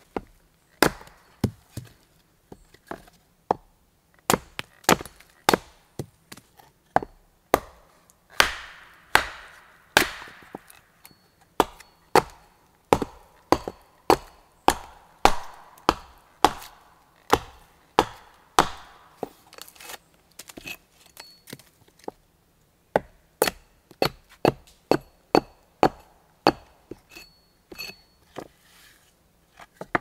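Hatchet blows splitting thin pieces off a block of wood on a chopping stump: a steady run of sharp wooden knocks, about one or two a second, with a short pause about two-thirds through.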